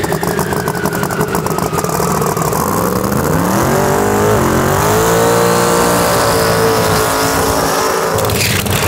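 Pro Mod drag car engine during a run. It crackles at first, then the engine note climbs steeply about four seconds in and holds high and steady at full throttle until it drops away near the end.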